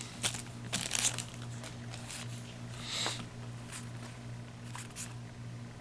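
Yu-Gi-Oh! booster pack and trading cards being handled: a few brief rustles and card slides over a steady low hum.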